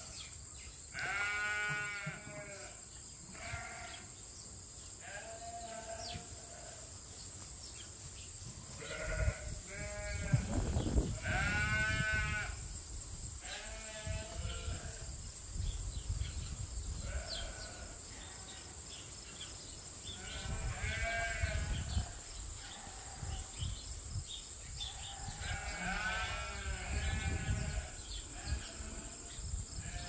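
Sheep bleating now and then, several long wavering bleats with pauses between, the loudest about a third of the way in. A low rumble runs under the middle bleats.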